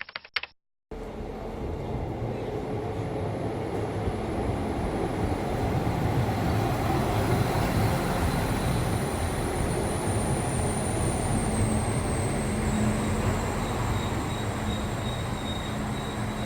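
Train running into a station: a steady rolling rumble with a thin high whine that drops a little in pitch about two-thirds of the way through.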